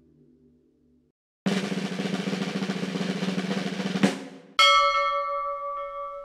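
Soft ambient music fades out, and after a brief gap a snare drum roll plays for about two and a half seconds and ends in a hit. A struck bell then rings out and slowly fades.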